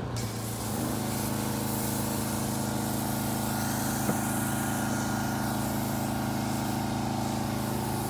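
Pressure-washer foam cannon hissing as it sprays soap foam onto a dump truck, over an engine running steadily.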